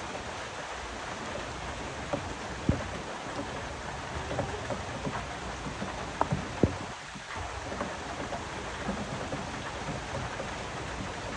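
Steady rain falling, with a few sharp taps standing out, the loudest about a third of the way in and twice just past the middle.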